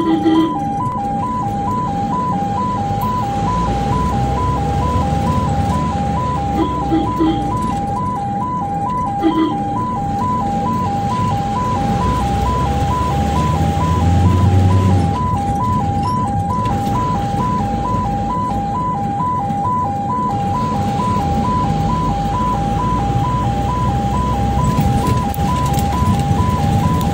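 Ambulance two-tone siren, heard from inside the cab, switching quickly between a high and a low note and never letting up. Short horn honks come near the start and again around seven and nine seconds in, over steady engine and road noise.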